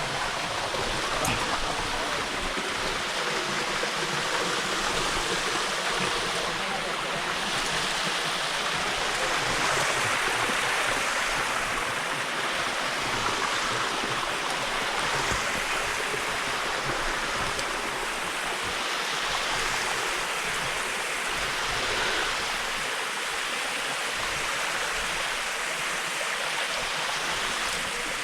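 Steady, unbroken rush of a mountain waterfall and its stream.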